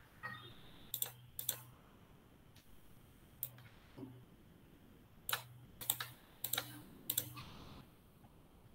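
Computer keyboard keys and clicks, sparse and irregular, with a quick cluster of strokes about five to seven seconds in, picked up faintly by a laptop's video-call microphone.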